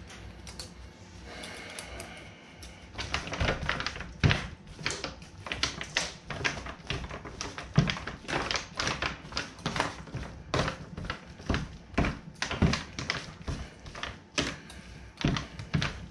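Metal meat-shredding forks scraping and clicking against a disposable aluminium foil pan as a tender cooked chuck roast is pulled apart. The irregular clicks and scrapes come several times a second, starting about three seconds in.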